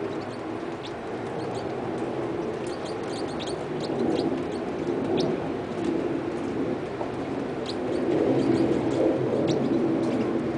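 Crossbills giving many short, high call notes, scattered irregularly, over a louder, steady low-pitched noise.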